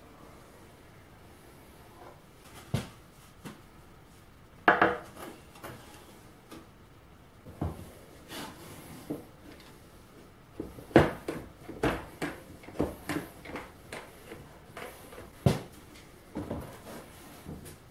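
Scattered knocks and clicks of a plywood board being laid on a table saw top and clamped down with one-handed trigger bar clamps, with a quick run of clicks in the middle as the clamps are squeezed tight. Near the end a sharp knock as a heavy bottle of liquid is set on the board as a weight.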